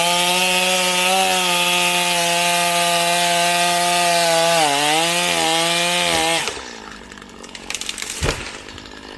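Two-stroke chainsaw at full throttle cutting through a tree trunk, its pitch sagging briefly under load about five seconds in before it drops off about six and a half seconds in. A single sharp knock follows about two seconds later.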